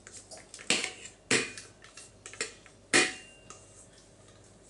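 Metal mixing bowl clanking as thick cake batter is scraped out of it into a springform pan: a few sharp knocks with a short metallic ring, the loudest about three seconds in.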